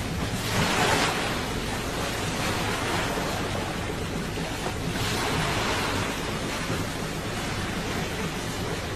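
Sea water rushing and splashing against the hull of a fishing boat under way, with wind on the microphone and a low steady hum from the boat. The splashing surges louder about half a second in and again around five seconds.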